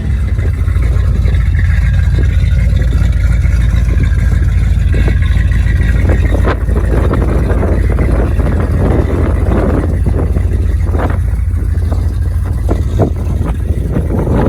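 Chrysler Valiant with an LA 318 V8 on the move, a steady low engine and road drone. From about halfway through, rattles and short knocks sound over it.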